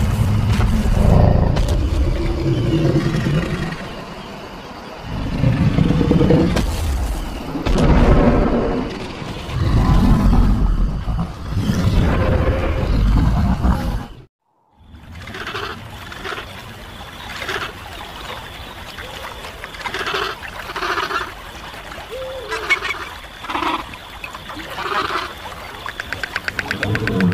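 Deep, loud growls and roars of animated dinosaurs, in several long bursts. After a sudden cut about halfway through comes a quieter stretch of many short animal calls over trickling water.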